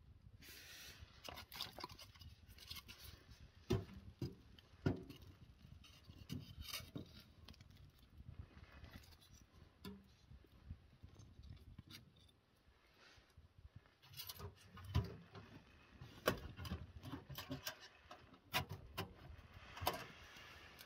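Small wood stove being stoked: a stick scraping and poking in the firebox, with scattered knocks of wood and metal. The sharpest knocks come about four and five seconds in, and a busier run comes in the second half.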